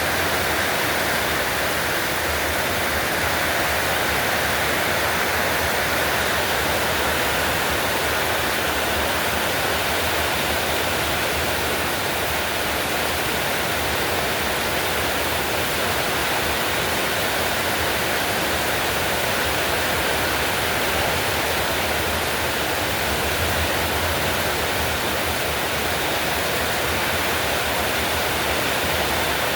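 Heavy rain pouring down steadily, a dense, even hiss that holds the same level throughout.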